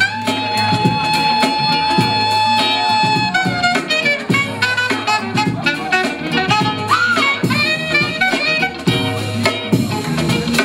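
Battle music for breaking, with a steady drum beat. A single high note is held for about three seconds at the start, then a moving melody line follows with a quick bend in pitch about seven seconds in.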